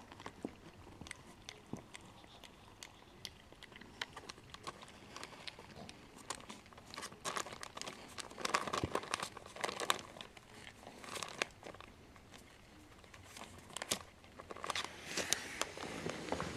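Two five-week-old Chihuahua puppies eating dry kibble from a plate: an irregular run of small, sharp crunches and clicks. They come thickest about halfway through and again near the end.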